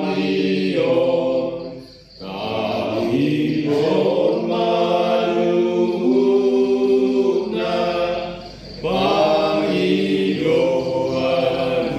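A group of voices singing a slow, chant-like prayer in long held notes, phrase by phrase, with two short breaks between phrases.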